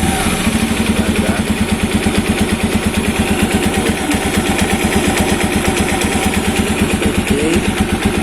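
Motorcycle engine idling steadily with an even, rapid pulse, about ten beats a second, running fine after the repair of an oil leak.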